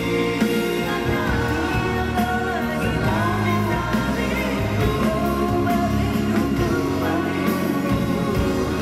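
A male singer singing a Malay pop song live into a handheld microphone over instrumental backing. His voice comes back in about a second in, after a short instrumental gap.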